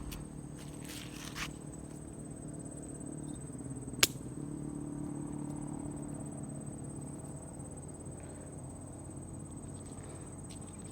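Crickets trilling with a steady, high, unbroken tone, and one sharp click about four seconds in.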